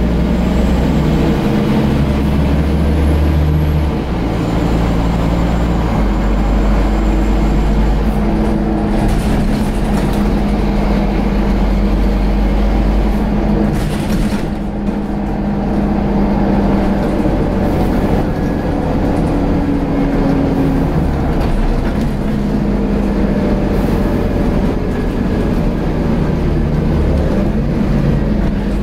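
Scania N230UD double-decker bus's five-cylinder engine and ZF automatic gearbox running under way, heard from inside the passenger saloon. The engine note steps up and down several times as the bus changes speed.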